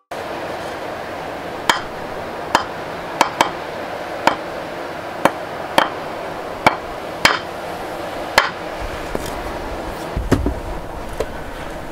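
Two wooden blocks knocked together by hand, about ten sharp clacks at uneven intervals over a steady hiss, followed near the end by a few duller low thumps.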